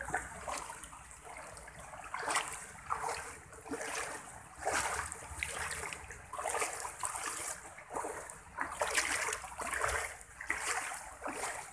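Muddy floodwater running and splashing, in uneven surges.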